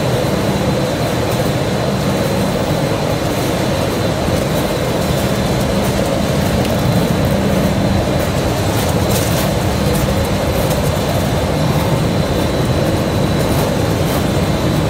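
Puffed-snack production line machinery running: a steady, loud mechanical hum with a thin, high, constant whine over it.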